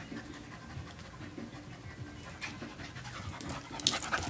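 A dog panting softly while playing, with a few faint scuffles near the end.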